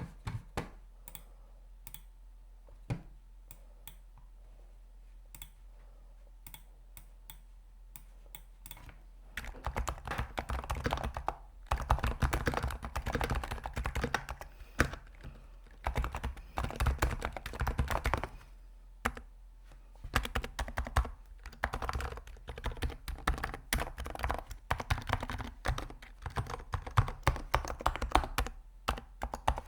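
Typing on a computer keyboard: scattered single keystrokes for the first several seconds, then fast, continuous typing from about a third of the way in, broken by a short pause a little past the middle.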